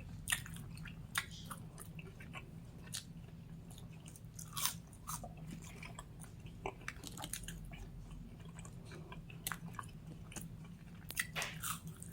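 Close-up chewing of a fried onion ring dipped in sauce: irregular crunchy clicks and wet smacks of the mouth.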